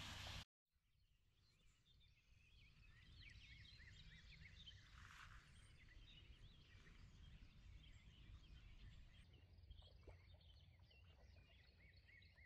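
Faint chirping of many small songbirds over a low, steady outdoor rumble. A short brushing noise is cut off abruptly about half a second in.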